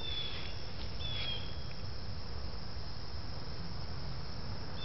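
Steady low background hum with two short, high, slightly falling chirps about a second apart near the start and one more at the end.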